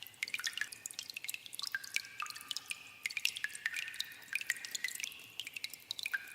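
Water dripping in a cave: many drops falling into pools, several a second, each a sharp plink, many with a short ringing note.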